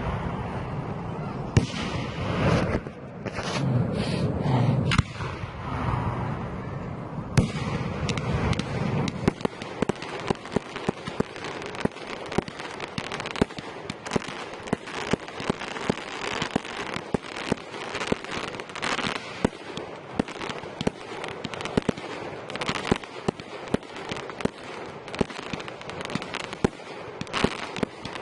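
Fireworks display: heavy booms and rumbling for the first several seconds, then a long, dense crackling of many small rapid pops.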